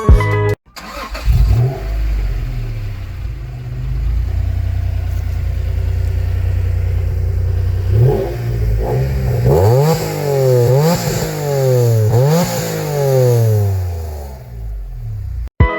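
Honda NSX Type R's V6 engine idling steadily, then blipped repeatedly from about eight seconds in, the revs rising and falling quickly several times before dropping back to idle.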